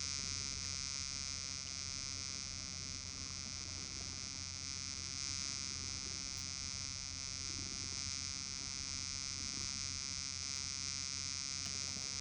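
Steady electrical buzz with a hiss over it, unchanging throughout, which the uploader thinks is a space heater.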